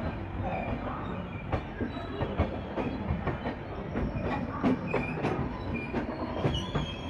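Coach of an Indian express train running on the track: a steady rumble with irregular clicks and knocks of the wheels over rail joints, and short high wheel squeals, the longest near the end.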